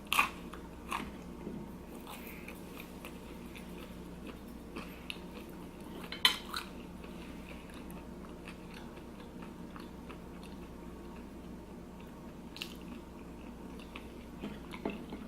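A person eating close to the microphone: chewing and biting with a few sharp clicks, the loudest about six seconds in, over a steady low hum.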